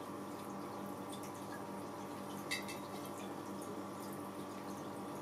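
Small taps and clicks from a cat pawing and nosing at a clear vase lying on its side with treats inside, with one sharper click about halfway through, over a steady low hum.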